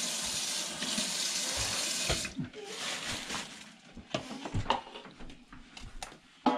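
Water running from a tap into a sink, shut off suddenly about two seconds in, followed by scattered clicks and knocks of handling, with one sharp knock near the end.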